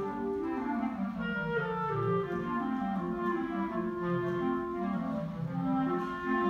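Clarinet ensemble playing a piece in several parts at once, a low part moving beneath held higher notes.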